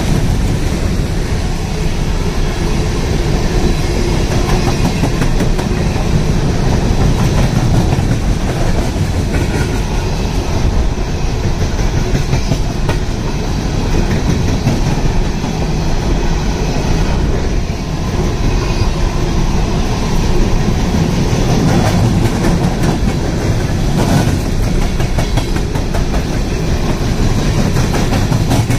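Coal train's hopper cars rolling past: steel wheels running on the rails with a steady clickety-clack over the rail joints.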